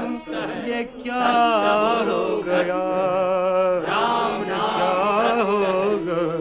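Male voices chanting a slow lament in Hindustani, on long held notes that waver in pitch.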